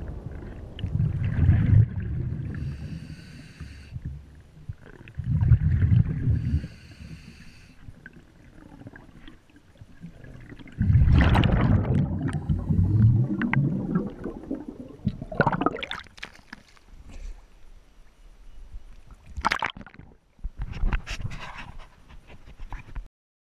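A scuba diver breathing through a regulator underwater: short hissing inhales and loud bursts of exhaled bubbles every few seconds, then sharper crackling bubble sounds that cut off suddenly near the end.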